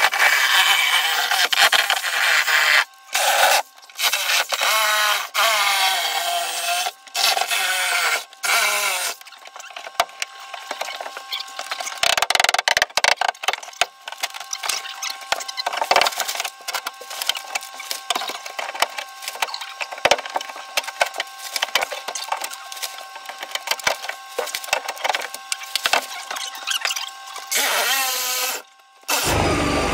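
Fiberglass shower enclosure being broken apart by hand: panels creaking and squealing in wavering stretches over the first several seconds, then a long run of rapid cracking, snapping and crunching as the fiberglass splinters.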